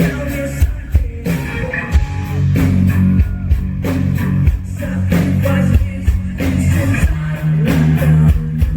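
Live rock band playing: electric guitar, bass and drums at full volume, with regular drum hits.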